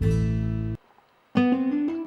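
Background music of plucked guitar: a held chord cuts off under a second in, a brief gap of near silence follows, and plucked notes start up again.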